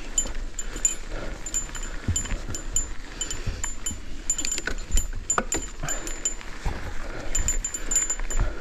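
Cannondale Scalpel full-suspension mountain bike clattering down a rough dirt trail: quick metallic clicks and clinks from the chain and drivetrain, with several heavy knocks as the wheels hit bumps. A steady low rumble of wind on the microphone sits underneath.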